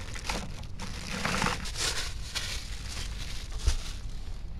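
Fishing gear being packed into a plastic bucket: plastic bags and wrappers crinkling and rustling, with plastic containers scraping and one sharper knock near the end.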